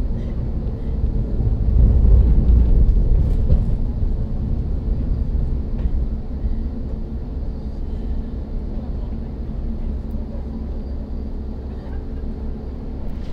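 MetrôRio Line 1/4 metro train running, a steady low rumble heard from inside the car, swelling about two seconds in and then easing off.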